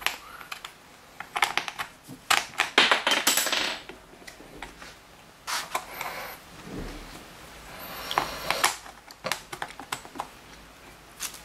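Wooden dowel legs being fitted and screwed into the sockets of a display-table board: irregular clusters of small clicks and knocks.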